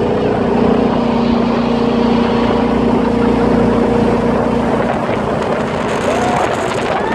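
Jetboat engine running steadily at speed, a loud even hum over the rush of water and wind. About five seconds in, the engine tone fades under a rougher rush of water as the boat swings into a hard turn.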